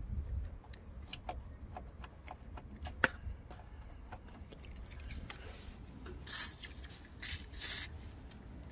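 WD-40 aerosol can sprayed through its straw onto the engine in two short hisses about six and seven seconds in, after a few light clicks of the can being handled, over a low rumble.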